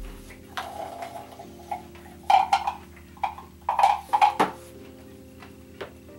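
Chocolate-covered macadamia nuts rattling inside a metal can as it is tipped and shaken, in two short bursts of clatter a little over a second apart, with a few lighter clicks around them.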